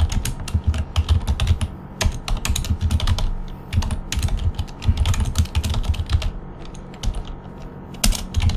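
Typing on a computer keyboard: quick runs of keystrokes broken by short pauses, with a longer lull about seven seconds in.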